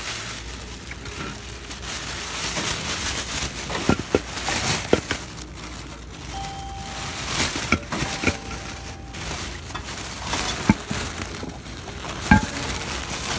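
A black plastic shopping bag and jacket fabric rustling and crinkling right against the phone's microphone, with scattered clicks and knocks of handling. Two short steady beeps sound midway.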